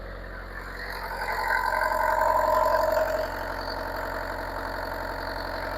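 Bobcat 334 mini excavator's diesel engine running just after an oil change, with fresh oil going round as the oil pressure comes up. It grows louder about a second in, holds for about two seconds, then settles to a steady idle.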